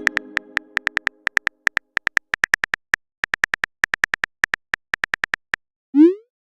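Simulated phone keyboard typing clicks from a texting app, about three to four a second with short pauses, as a message is typed. A quick rising swoop follows near the end as the message is sent. The fading tail of a chime is heard at the very start.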